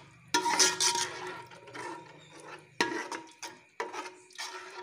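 Spoon stirring a thick, wet spinach mixture in a cooking pot, with a wet squelching sound and several knocks and scrapes against the pot.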